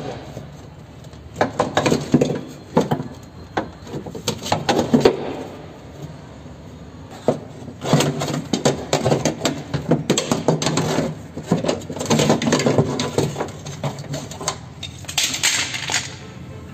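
Metal clattering and scraping in several bursts as a Hyundai Accent's cable-type power window regulator is worked out of the door, its rail and cables knocking against the door's sheet-metal inner panel.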